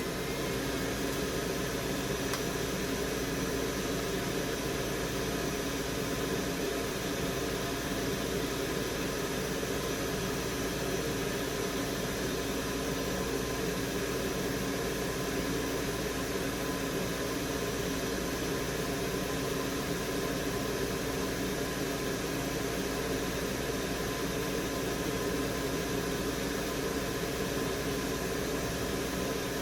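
Steady fan and airflow noise from electronics rework equipment running continuously, with a constant hum underneath, while solder is removed from a graphics card's circuit board.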